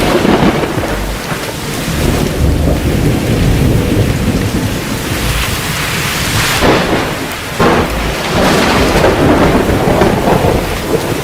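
Thunderstorm: steady heavy rain with rolling thunder, and sudden louder rumbles about seven and eight seconds in.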